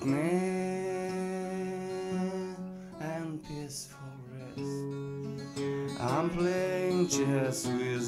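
Finger-picked steel-string acoustic guitar, with a man's voice singing long held notes over it, one in the first couple of seconds and another near the end.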